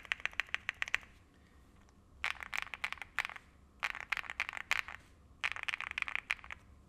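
Mechanical keyboard fitted with BSUN Bubble linear switches on a PP plate being typed on in four quick bursts of keystrokes, each about a second long, with short pauses between.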